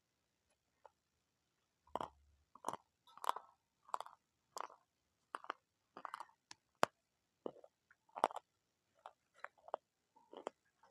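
Crunchy food being bitten and chewed close to the microphone: a run of short, sharp crunches, about one or two a second, starting about two seconds in.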